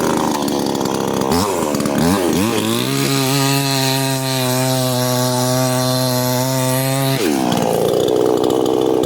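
A 58cc gas chainsaw revving up over the first few seconds, then held at high revs for about four seconds. The pitch drops sharply about seven seconds in, and the saw settles into a lower, rougher sound.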